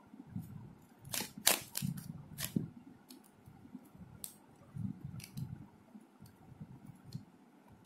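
Sharp plastic clicks and soft rustling as the layers of a Diansheng Shield Cube, a 3x3 shape-mod twisty puzzle, are turned by hand. The clicks come in a quick cluster between about one and two and a half seconds in, then a few more, spaced out.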